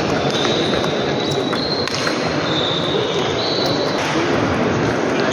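Table tennis ball clicking off bats and table in a rally, over the steady hubbub of a large sports hall with other tables in play, and a few short high squeaks.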